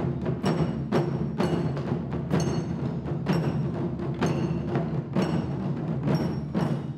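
Japanese taiko drum ensemble playing lion-dance (shishimai) music: drums struck together in a steady beat of about two strokes a second, ringing between strokes.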